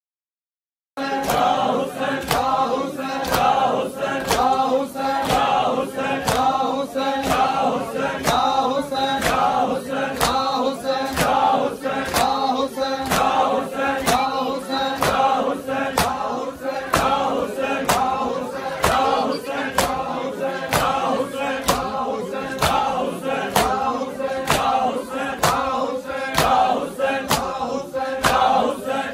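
A group of men chanting a Saraiki noha in chorus, with hands beating chests (matam) in time. The slaps come as a steady beat a little faster than one per second. It all starts about a second in, after a brief silence.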